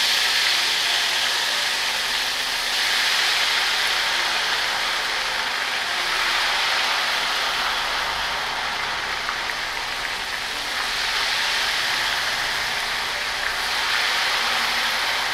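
Ghevar batter frying in deep, very hot desi ghee as it is poured in a thin stream: a steady, fairly loud hissing sizzle of foaming ghee that swells slightly a few times.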